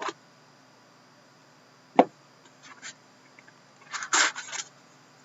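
A hockey card box and pack being handled and opened. There is a sharp knock about two seconds in and light scrapes, then a short rustle of packaging near the end and another knock.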